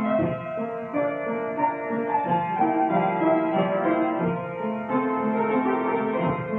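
Upright piano being played, a continuous run of notes and chords.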